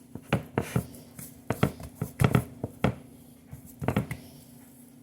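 Hands pressing and patting pizza dough in a pan: about a dozen short, irregular slaps and pats, bunched in the middle.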